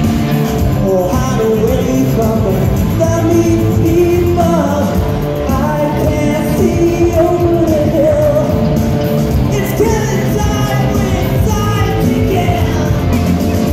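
Live rock band playing loud and without pause: a lead singer over electric guitars and drums.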